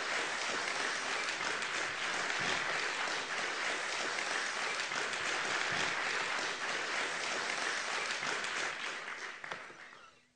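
Audience applauding at the end of a live song, a steady dense clapping that fades out in the last second.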